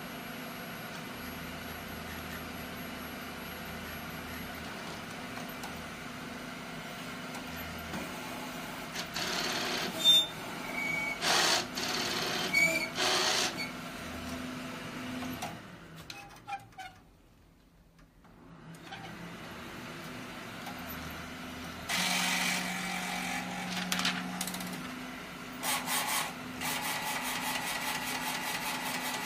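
Large-format inkjet printer running a test print: a steady machine hum, then several louder bursts as the printhead carriage moves and the printer works, a short near-quiet gap in the middle, and rapid ticking near the end.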